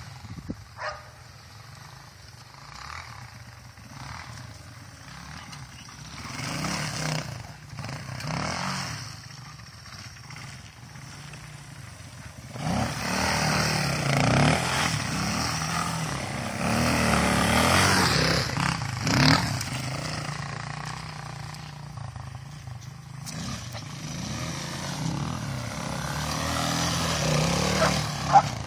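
Honda XR200R dirt bike's single-cylinder four-stroke engine revving while its rear tire spins in snow. It runs quieter at first, is loudest from about twelve to twenty seconds in, then eases and builds again near the end, where there is one sharp click.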